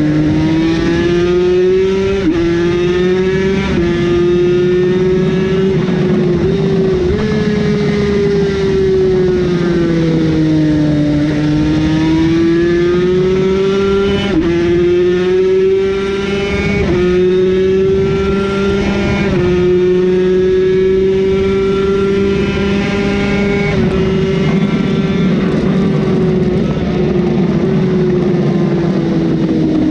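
Yamaha TZ250's liquid-cooled 249 cc two-stroke V-twin running hard at speed on a racing motorcycle, its pitch rising and falling and jumping sharply several times at gear changes.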